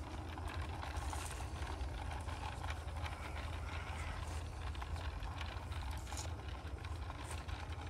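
Modified Roundhouse 'Hercules' 7/8ths scale model diesel locomotive and four wagons trundling along garden railway track, the wheels rattling on the rails with a few sharp clicks, over a steady low rumble.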